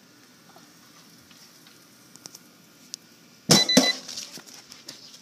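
Battery of an NJoy OneJoy disposable e-cigarette venting explosively inside a toaster oven under broiler heat at about 300 degrees. It gives two sharp pops about a third of a second apart, with a brief hissing rush as it flares into flame, after a few faint ticks.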